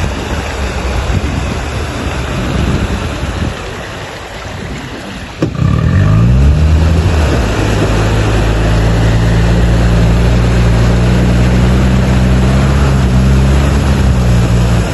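All-terrain vehicle's engine with wind rushing over it; about five seconds in the sound changes abruptly to a clear engine note that rises briefly as it revs up, then holds steady as the vehicle drives on.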